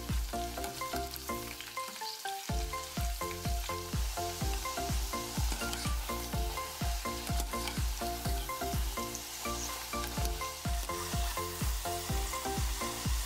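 Potato-starch-coated beef strips deep-frying in oil at about 180 °C: a steady bubbling sizzle as a wire spider strainer stirs them in the pot. Background music with a steady beat plays along.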